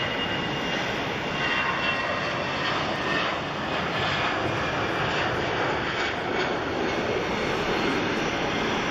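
Boeing E-4B's four General Electric CF6-50 turbofans running at taxi power as the big jet rolls slowly along: a steady jet roar with a faint high turbine whine.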